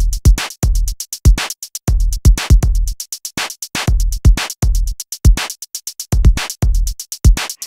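Electronic music with a drum-machine beat: deep kick hits in a repeating pattern under quick high ticks.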